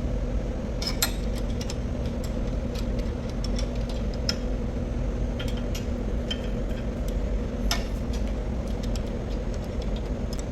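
Scattered small metallic clicks and clinks, as of tools and parts being handled during a hydraulic seal repair, over a steady low machinery hum. A few clinks stand out, about a second in, around four seconds in and near eight seconds.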